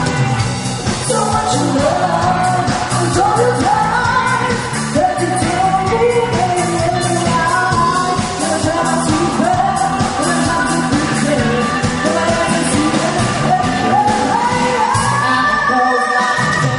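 A band playing a song with a lead singer, in a pop-rock style. Near the end the sung melody climbs higher in steps.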